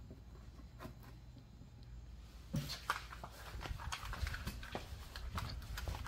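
Footsteps and handling noise as the recording device is carried out onto a concrete driveway: a few light clicks, then from about halfway a busy run of irregular scuffs and knocks over a low rumble.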